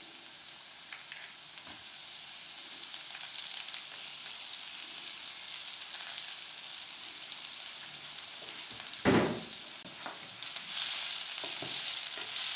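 Vegetables and noodles sizzling in hot oil in a nonstick frying pan, with one short thump about nine seconds in. The sizzle grows louder from about ten seconds as a wooden spatula stirs the noodles through.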